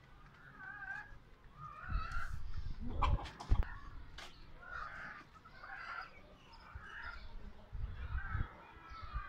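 Chickens calling: short squawking calls repeating about once a second. There are a few heavy bumps and a sharp knock about three seconds in.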